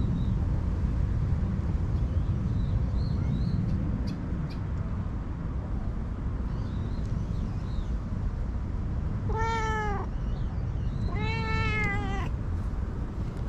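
A domestic cat meows twice, short then longer, about nine and eleven seconds in, over a steady low rumble.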